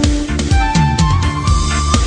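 Background music: an electronic track with a steady, heavy beat and a sustained melody line.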